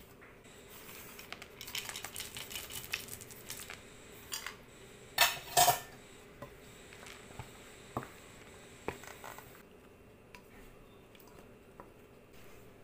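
Wooden spatula stirring dry ingredients in a stainless steel mixing bowl, with scraping and small clicks against the metal, then two loud clanks about five seconds in and a few lighter knocks after.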